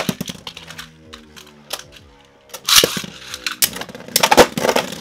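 Beyblade Burst tops spinning in a plastic stadium: a sharp clatter at the start, then a steady whirring hum, then a run of sharp clashes and rattles as the tops collide, about three to four and a half seconds in.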